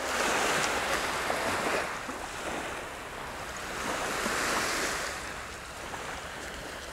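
Small waves washing up the beach, the surf hiss rising and falling twice.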